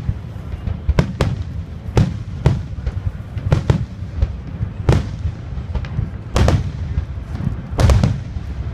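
Aerial fireworks shells bursting in quick succession: a sharp bang every second or so with a low rumble between, the loudest bangs near the end.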